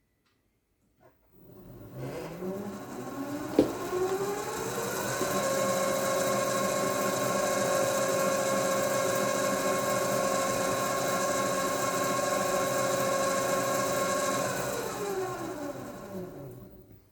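Sieg C2-400 mini lathe driven by a 0.37 kW three-phase motor on a VFD through an M5 belt, spinning up with a rising whine, running steadily at speed, then spinning down with a falling whine and stopping. A single sharp click comes as it speeds up.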